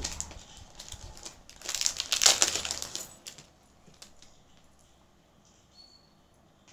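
A white jewellery packet crinkling as it is opened and unwrapped by hand. The rustling runs for about three seconds and is loudest around two seconds in.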